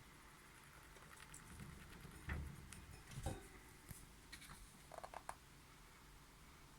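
Faint scratching and small clicks from a pet rat moving about its cage, with two soft low knocks about two and three seconds in and a quick run of taps near the end.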